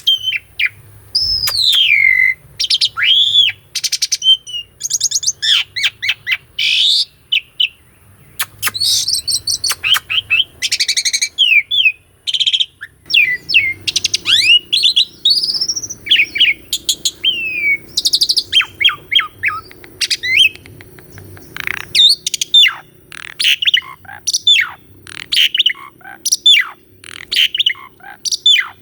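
Asian pied starling (jalak suren) singing a long, varied song: clear whistled notes, many gliding downward, in quick succession with rapid rattling, chattering phrases.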